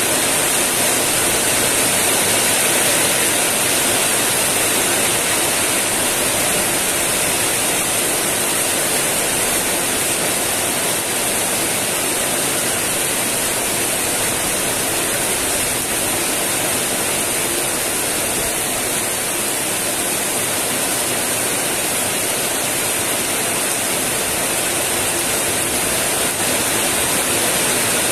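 Heavy rain falling steadily on tiled roofs and banana leaves, a dense even hiss with no let-up.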